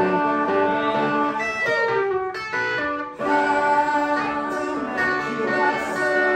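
Live guitar music, plucked and strummed, with a man singing over it. The sound dips briefly just after three seconds in, then comes straight back.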